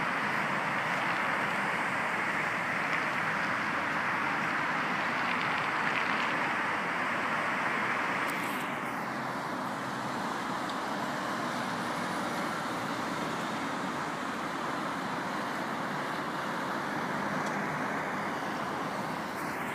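Steady road traffic noise from cars passing on the street below, a constant hiss of tyres and engines that becomes a little quieter after about eight seconds.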